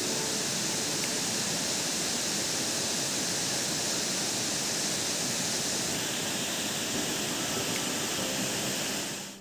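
Steady outdoor background hiss, even throughout, with no distinct events.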